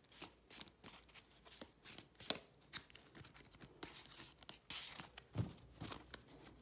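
A deck of tarot cards being shuffled by hand: a run of soft, irregular card flicks and rustles.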